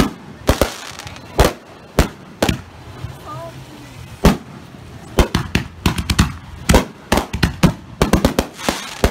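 Aerial fireworks bursting overhead: single sharp bangs about every half second at first, then a fast run of crackling reports from about five seconds in.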